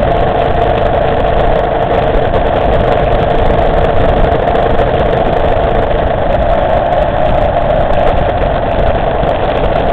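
Motorcycle engine running steadily while the bike cruises along, heard from a bike-mounted camera, with a steady hum and no gear changes or revving.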